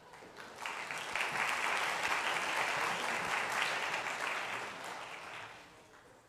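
Audience applauding. The clapping swells about half a second in and dies away near the end.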